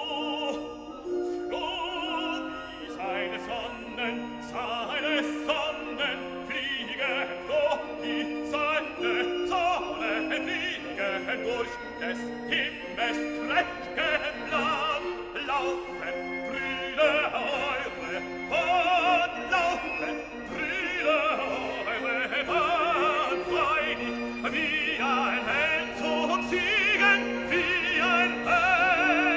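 Background music added in editing: classical music with a singer's voice wavering in vibrato over orchestral accompaniment.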